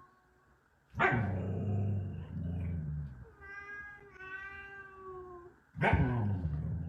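A dog barking loudly twice, each bark running into a low rumbling growl. Between the barks comes a long, drawn-out wailing call.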